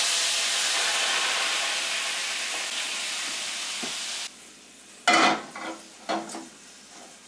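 Liquid poured from a bottle into a hot frying pan, hissing and sizzling loudly as it hits the hot pan to start a quick pan sauce. The sizzle drops off sharply about four seconds in.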